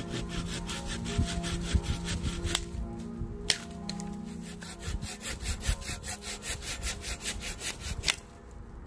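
Hand saw cutting through a green branch in quick, even back-and-forth strokes. The strokes stop near the end.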